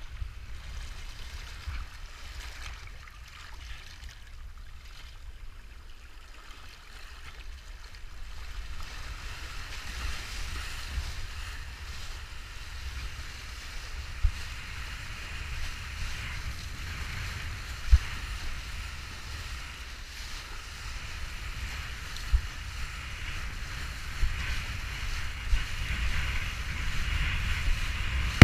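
Wind buffeting the action camera's microphone over the rushing, hissing water under a kiteboard riding fast across choppy water in strong wind. It grows louder after about eight seconds, with a few short sharp knocks as the board hits chop.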